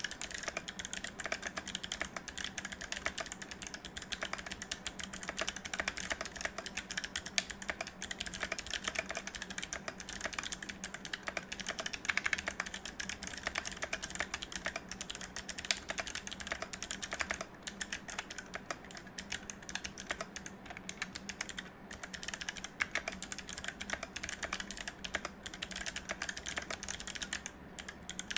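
Fast, continuous typing on a mechanical keyboard with clicky Kailh Box Navy switches, a steel plate and GMK keycaps in an acrylic case: a dense stream of sharp key clicks, with a few brief pauses.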